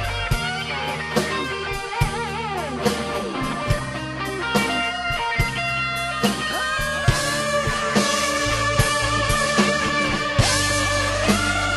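Rock band music: an electric guitar lead line with bends and vibrato over bass and a steady drum beat.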